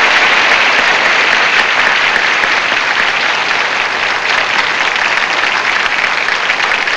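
Studio audience applauding steadily, easing off slightly toward the end.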